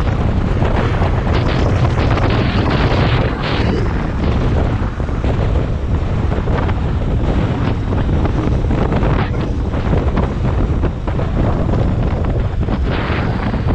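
Loud wind noise buffeting the microphone: a dense low rumble and hiss that rises and falls in gusts.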